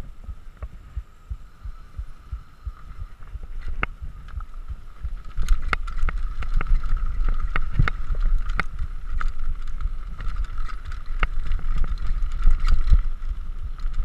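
Downhill mountain bike rolling fast over a rough dirt trail: wind rumbling on the microphone, sharp rattles and knocks from the bike over the ground, and a steady high buzz. It gets louder and busier about five and a half seconds in.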